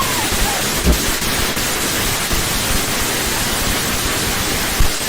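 Indoor firework fountain spraying sparks with a loud, steady hiss, and a couple of dull thumps, about a second in and near the end.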